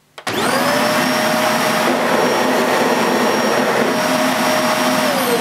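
AEG Nimble bagless upright vacuum cleaner switched on: the motor spins up with a quickly rising whine, then runs steadily, loud airflow with a whine over it, not too noisy. Near the end it is switched off and the whine falls as the motor winds down.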